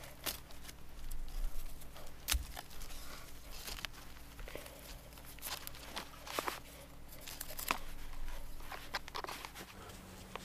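Natural-fibre rope being wrapped and pulled tight around a tripod of wooden sticks: irregular rustles and crisp clicks of rope rubbing on bark and sticks knocking together.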